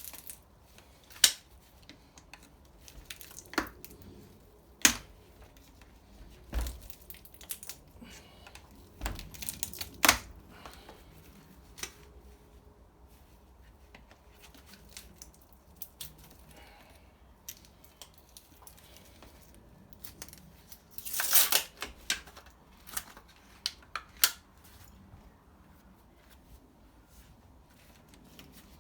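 Scattered sharp clicks and knocks of hand work on a transformer being stripped for its copper, with a denser noisy burst lasting about a second some two-thirds of the way through.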